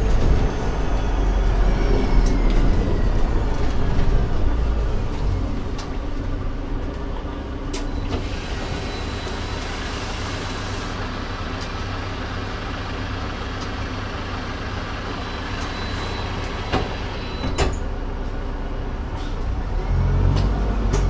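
Alexander Dennis Enviro 500 double-decker bus, with its Mercedes-Benz OM936 diesel and Voith automatic gearbox, slowing with a falling whine. It then idles steadily, with a hiss and a few sharp clicks. Near the end the engine picks up again as the bus moves off.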